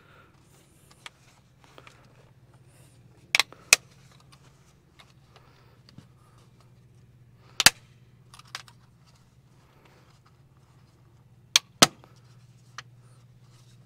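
Latch clips on an LS MT342 tractor's air filter housing snapping shut as the cover is pressed on. Five sharp snaps: a quick pair about three and a half seconds in, a single snap near the middle, and another quick pair near the end.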